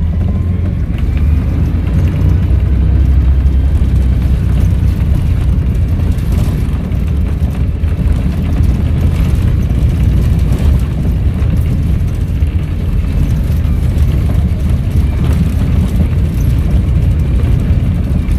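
Volvo B7RLE bus's six-cylinder diesel engine running steadily with a heavy low rumble, and a faint turbo whistle rising in pitch about a second in.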